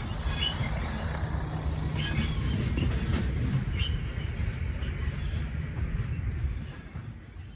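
TEM2 diesel shunting locomotive and its short train of loaded gondola wagons moving away: a steady low rumble of engine and rolling wagons with a few short wheel squeals and clicks, fading out near the end.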